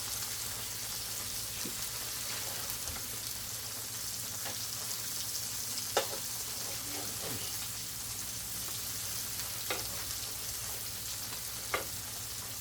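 Tofu frying in a pan: a steady sizzling hiss, with a few short sharp clicks about six, ten and twelve seconds in.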